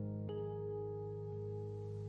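Gentle background music: sustained instrument notes over a steady low tone, with a new note coming in about a third of a second in and another about a second later.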